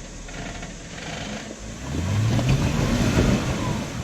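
A Jeep's engine revving up about two seconds in as it is driven over the rocks, then easing back off near the end.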